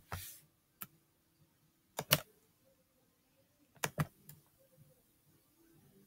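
A few sharp clicks from a computer being operated, several of them in close pairs, spaced a couple of seconds apart, over faint room tone.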